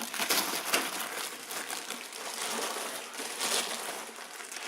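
Plastic packaging crinkling and rustling as it is handled, in irregular crackly bursts.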